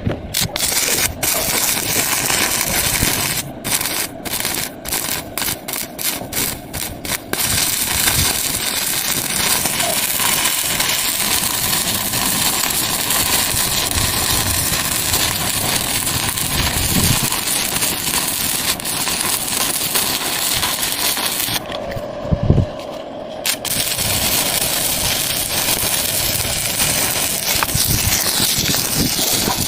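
Stick-welding arc crackling steadily on a vertical gap weld. Between about three and seven seconds in it is broken by a run of short gaps as the arc stops and restrikes, and it pauses again for about two seconds about three-quarters of the way through.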